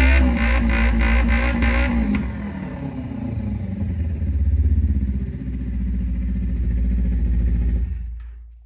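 Kawasaki Ninja 250R's 250cc parallel-twin engine running through a short black slip-on muffler. It is revved up and back in the first couple of seconds and blipped again about four seconds in, then settles to idle before being switched off about eight seconds in, dying away quickly.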